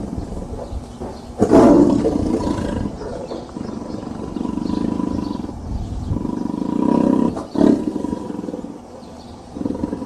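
A big cat roaring: a loud roar about a second and a half in, followed by several long, low, drawn-out roars.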